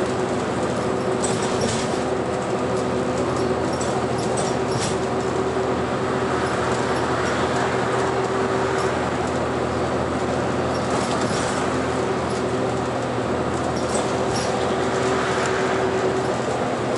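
Inside a city bus cruising at expressway speed: a steady drone of engine and road noise, with a constant whine and a few light rattles.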